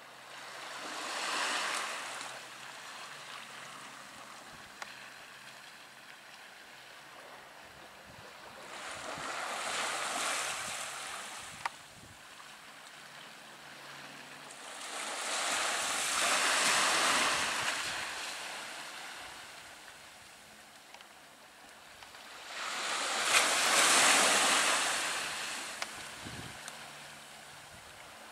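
Small waves washing onto the shore in four swells, each building and fading over a few seconds, about seven seconds apart.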